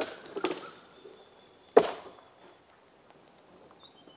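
A few sharp knocks, the loudest a single hard knock about two seconds in, with a thin high whistle in the background.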